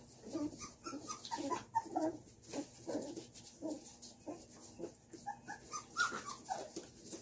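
Young puppies whimpering, with many short, high squeaks following one another several times a second.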